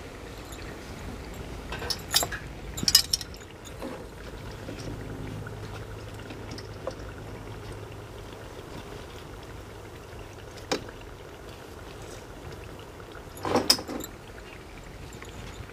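Mathri deep-frying in hot oil in an iron karahi: a steady sizzle. Sharp metal clinks and knocks cut through a couple of times about two to three seconds in, once near eleven seconds and again near the end.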